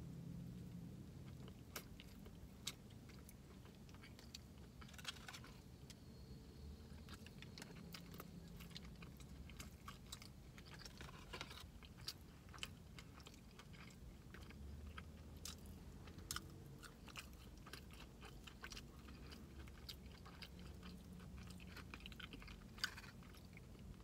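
A person chewing a sandwich close to the microphone: faint, scattered wet mouth clicks and smacks.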